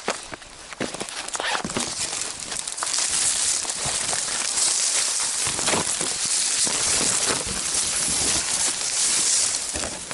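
Footsteps of a hiker climbing a steep trail, irregular steps on the ground, with a steady high hiss that grows louder about three seconds in.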